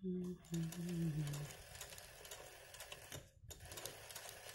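Sewing machine stitching rapidly in hand-guided free-motion embroidery, a fast run of needle strokes. A low hum, stepping down in pitch, sounds over the first second and a half, and the machine stops briefly a little past three seconds in before running on.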